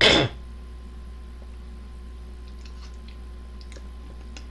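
Man chewing ramen noodles, with a few faint mouth clicks later on, after a brief loud rush of air right at the start.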